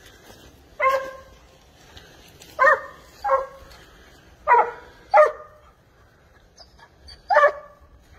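Spanish hound (sabueso español) giving tongue on a wild boar's scent trail: six barks at uneven intervals, two of them in quick pairs.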